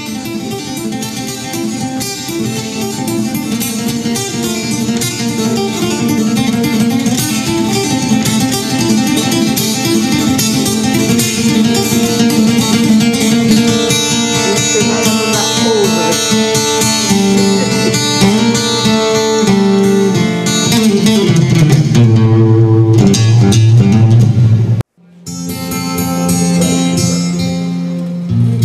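Acoustic guitar played solo with quick picked runs of notes, settling onto low ringing notes near the end. The sound cuts out abruptly for a moment about three seconds before the end, then the guitar playing resumes.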